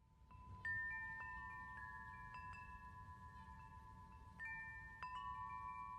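Faint chime notes struck one after another at uneven moments, each ringing on for several seconds so that they overlap, over a low steady rumble.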